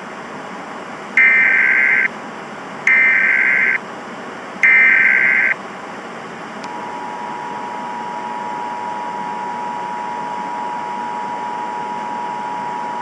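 Emergency Alert System tones: three short bursts of the SAME data header, about a second each, then the steady two-tone EAS attention signal starting about six and a half seconds in, over a constant hiss.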